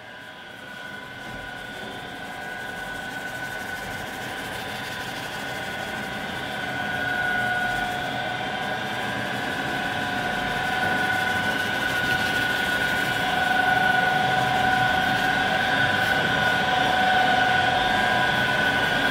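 Steady drone of bakery machinery with a high, even whine over it, growing gradually louder.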